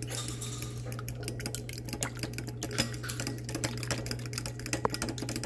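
A fork beating a raw egg in a bowl, its tines clicking rapidly and steadily against the bowl, over a steady low hum.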